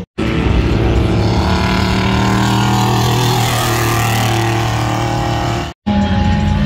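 Off-road vehicle engine running at a fairly steady pitch, wavering a little midway. The sound drops out completely for a moment just after the start and again near the end.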